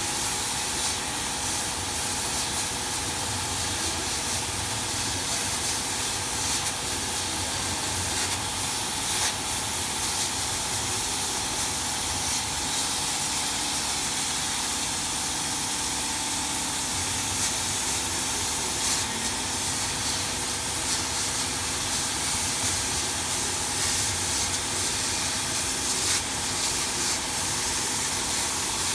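Dual-head CO2 laser fabric cutting machine running while it cuts fabric on its conveyor bed: a steady hiss with a faint steady hum underneath and a few faint ticks.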